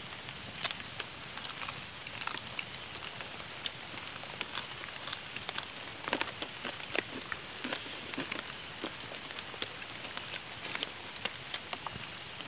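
Rain falling on leaves and the forest floor: a steady hiss with irregular sharp ticks of drops throughout.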